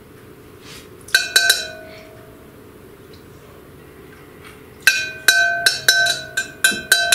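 Metal measuring spoon clinking against a glass measuring cup, each clink ringing briefly: three quick taps about a second in, then a run of about ten quick clinks in the last two seconds.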